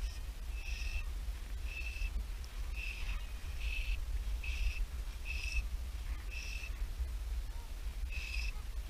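A bird repeating a short, high call about once a second, over a low wind rumble on the microphone.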